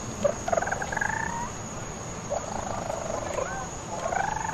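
Baby raccoons calling: several short, pulsing, wavering trills that glide up and down in pitch, one after another.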